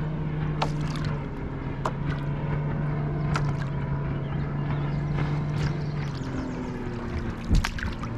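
Motorboat engine running steadily, its hum dropping a little in pitch about six seconds in. A few sharp knocks, the loudest near the end.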